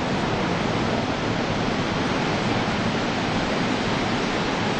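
Waterfall's falling water rushing in a loud, steady, unbroken hiss.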